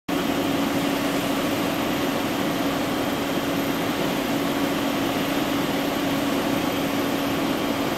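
Fire engines' diesel engines and pumps running steadily while supplying water to an aerial ladder's spray: a constant hum with one held tone over an even hiss.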